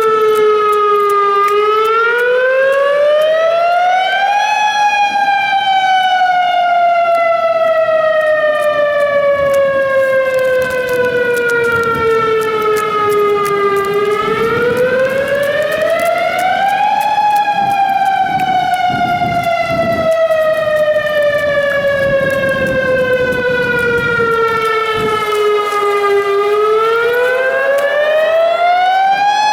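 Mechanical warning siren sounding a wail. Its pitch winds up over about three seconds, then sinks slowly for about nine seconds before winding up again. The cycle runs twice and starts a third near the end.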